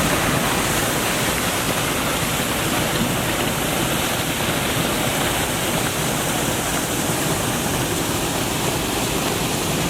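Triberg Falls' cascading water rushing in a steady, even roar, heard close up.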